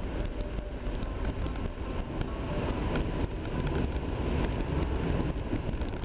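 Steady road noise of a car driving on a slushy, snow-covered highway, heard from inside the car: a low rumble of tyres and engine, with scattered small ticks throughout.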